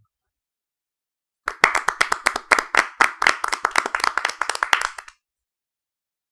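Hands clapping in a quick, uneven run of claps that starts abruptly about a second and a half in and stops abruptly after about three and a half seconds.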